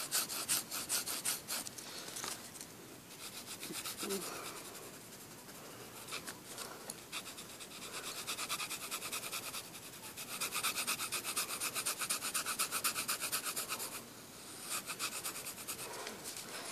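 A pencil shading on lined notebook paper: quick back-and-forth scratching strokes, several a second, coming in runs that fade briefly in the middle and pick up again.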